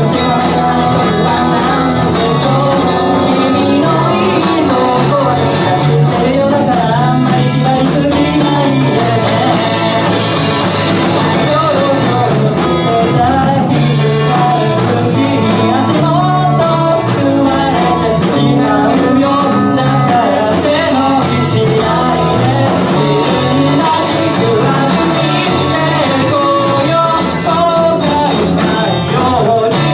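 Live rock band playing electric guitars and drums, with a singer.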